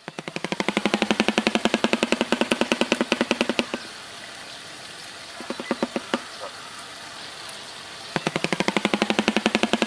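Shoebill clattering its bill in a rapid rattle of about ten claps a second. It breaks off about four seconds in, a few scattered claps follow, and the rattle starts again near the end.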